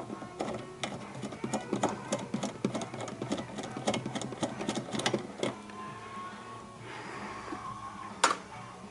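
Ratchet wrench clicking rapidly as a 15 mm nut is spun off a wiper arm, followed near the end by a single sharp click.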